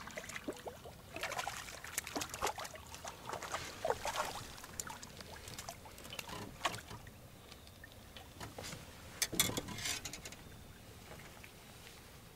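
Water splashing and dripping close by in a small boat, in irregular sharp bursts that cluster in the first few seconds and again around nine seconds in.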